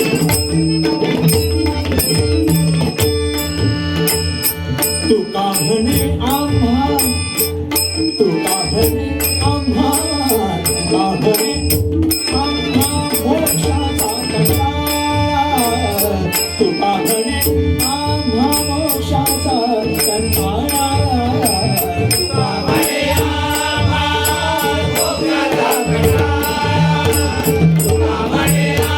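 Devotional bhajan music: a wavering melodic line over steady drum and small-cymbal accompaniment, fuller from about three-quarters of the way through.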